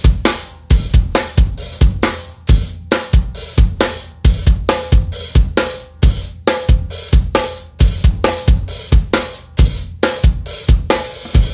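A rock drum kit playing a steady beat on its own, with kick drum, snare and hi-hat, as the song's opening.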